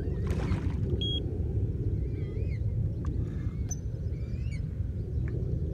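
Steady wind rumble on the microphone, with small birds chirping over it. About half a second in comes a brief splash as the hooked carp thrashes at the surface.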